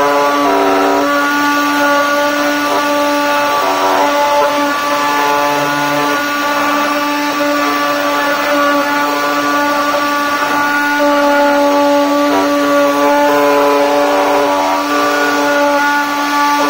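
Hobby CNC router engraving grooves into a wooden board: its small DC-motor spindle whines steadily while a bit cuts the wood, over stepper-motor tones that come and go and change pitch as the machine moves between cuts.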